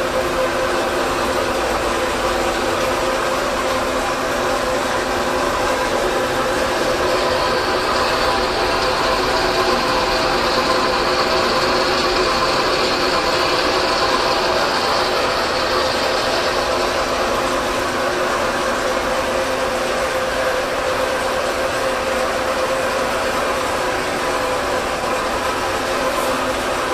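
Milling machine running on a trial run, with a steady gear whine of several fixed pitches. A higher whine joins for about ten seconds in the middle.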